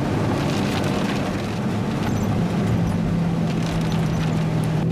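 Supercar engine running while driving, heard from inside the cabin over a steady hiss of road noise; about two and a half seconds in, the engine note settles onto a steady pitch.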